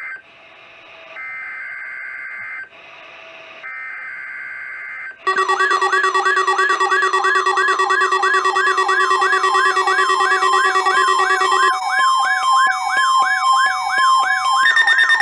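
NOAA Weather Radio SAME alert data: three short bursts of buzzing two-tone digital header data with hiss between them, marking the start of a Required Weekly Test. About five seconds in, a loud electronic warbling alert alarm starts, sweeping up and down about three times a second over steady tones. Its pattern changes twice before the end.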